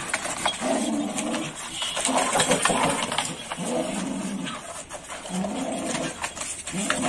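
Pit bulls growling in a run of short, low growls, about one a second, while tugging at a cloth.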